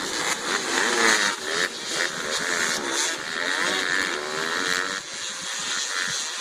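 Several youth dirt bike engines revving and accelerating off the start line, their pitch climbing and dropping again and again as the riders open the throttle and shift.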